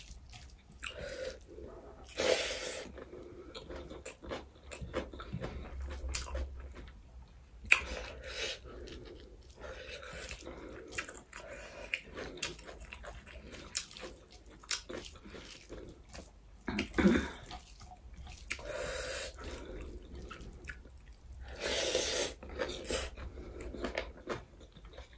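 Close-miked chewing and wet mouth sounds of a person eating rice with gravy by hand: irregular soft smacks and clicks, with a few louder bursts of about a second.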